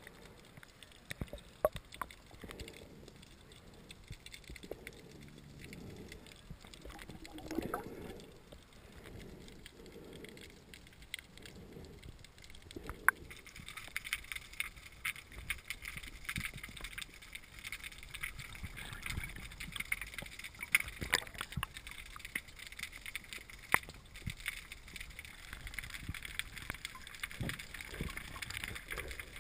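Underwater sound picked up by a submerged camera: faint, muffled water movement with soft low pulses about once a second, then, about halfway through, a steady crackle of many small clicks.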